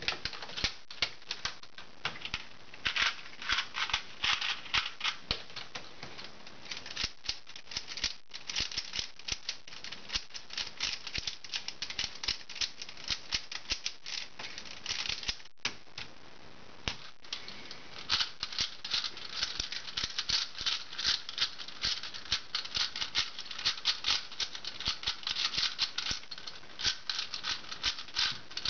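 Plastic speedcubes being turned fast: a dense run of rapid clicking and clacking as the layers snap round, with a couple of brief pauses. First a Dayan Zhanchi 3x3 is turned, then a Shengshou v3 4x4 near the end.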